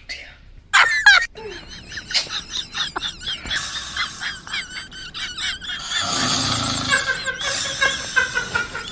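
A man snoring, with high wavering whistle-like tones running through the breaths.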